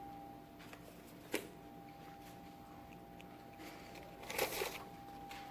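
Quiet room tone with a steady faint electrical hum. A single sharp click comes about a second and a half in, and a brief scuffing or rustling noise comes near the end.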